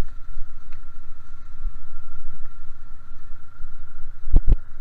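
ATV engine running as it rides a gravel track, with two sharp knocks close together near the end.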